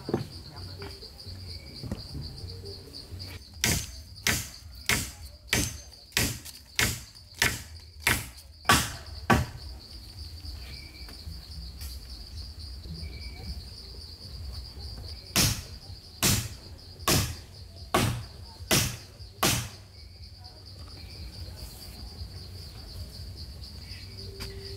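Sharp blows of a tool striking wood: a run of about a dozen at about two a second, then after a pause six more, a little slower. A steady high drone of crickets sounds behind them.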